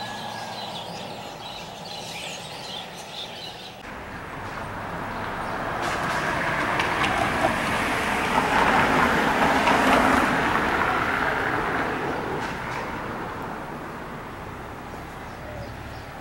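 A car passing along a street: tyre and engine noise that swells over several seconds, is loudest about ten seconds in, then fades away. Birds chirp faintly in the first few seconds.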